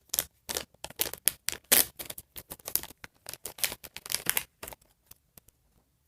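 A small plastic blind-bag packet being opened by hand, crinkling and crackling in a quick run of sharp rustles that stops about five seconds in.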